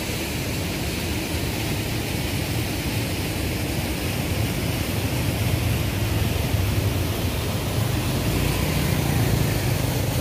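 Steady rush of a swollen river pouring over a weir, with a low rumble that grows a little louder in the second half.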